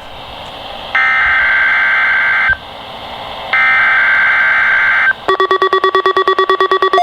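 EAS/NOAA Weather Radio SAME digital header bursts, the screeching data signal that encodes a Required Weekly Test: two bursts about a second apart. About five seconds in, a rapid electronic beeping of several tones together starts, pulsing about nine times a second.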